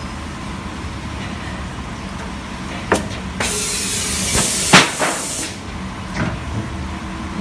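Plastic injection moulding machine running with a steady hum as the water jug mould opens for automatic demoulding. A click comes about three seconds in, then a loud hiss of air lasting about two seconds, with a sharp knock in the middle and another knock shortly after.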